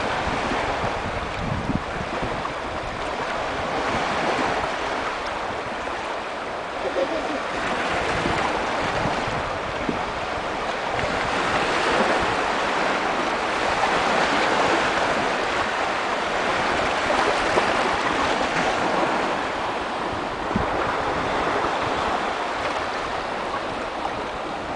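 Small waves washing onto a stony beach, a steady surf hiss that swells and eases every few seconds, with wind buffeting the microphone.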